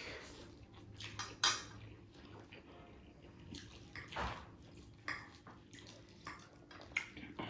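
Utensils clinking and scraping against plates and bowls while spicy laphing and ramen noodles are eaten, in scattered short clicks; the sharpest clink comes about one and a half seconds in.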